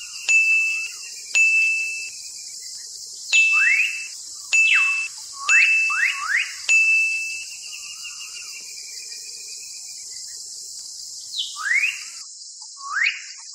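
Bird calls: short whistled notes held on one high pitch, each starting sharply, mixed with quick rising chirps, over a steady high hiss. The calls thin out through the middle and return as two rising chirps near the end.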